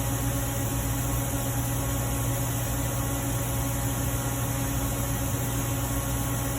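Steady electrical hum with an even hiss, unchanging throughout.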